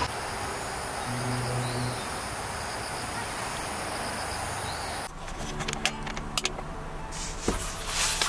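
Outdoor ambience of insects chirping over a steady hiss, with a brief low hum about a second in; about five seconds in it changes to a run of sharp clicks and rustling.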